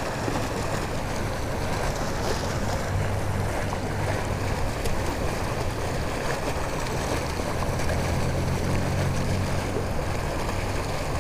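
Water rushing steadily from a large canal spill pipe into the river, with a low rumble under the rush.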